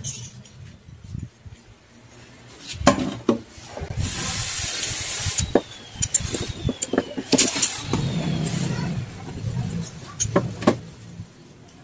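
Steel bolts, nuts and small bracket pieces clinking and knocking on a wooden board as they are handled and fitted together by hand, a few sharp metal knocks among them. A steady rushing noise runs under them for several seconds in the middle.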